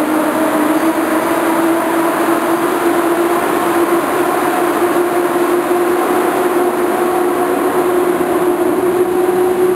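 EP07 electric locomotive pulling away with a passenger train, its traction motors whining in a tone that rises slowly as it picks up speed, over the rolling noise of the passing coaches.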